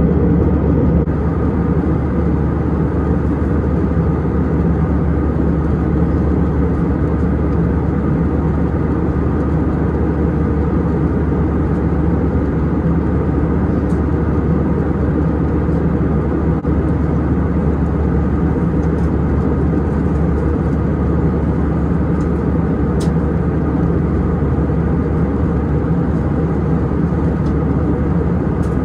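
Steady cabin noise inside a jet airliner cruising at about 35,000 feet: a constant low rumble that does not change.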